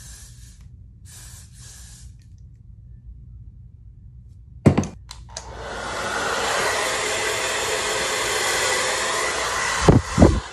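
Two short hisses of Got2b hairspray in the first two seconds. A knock about five seconds in, then a hair dryer running steadily for about four seconds, cut off with a couple of knocks near the end.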